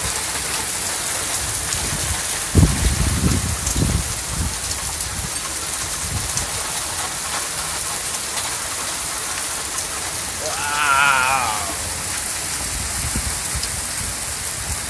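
Heavy storm rain pouring down in a dense, steady hiss. Wind gusts buffet the microphone with low rumbles about two and a half to four seconds in. A brief wavering tone sounds about ten seconds in.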